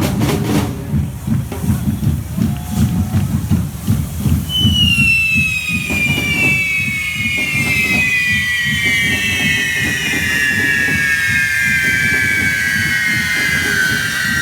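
Correfoc drums pounding rapidly. About four seconds in, a firework's shrill whistle starts and glides slowly and steadily down in pitch.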